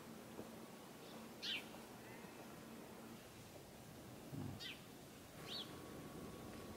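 A bird calling: short, high whistles that sweep downward, three of them a second or more apart, over a faint steady hiss. There is a soft low thud just before the second call.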